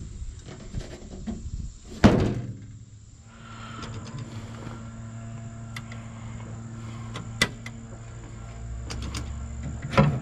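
A loud metal slam about two seconds in, the hood of a 1965 Ford M151A1 MUTT being shut. A little over a second later its four-cylinder engine starts and settles into a steady idle.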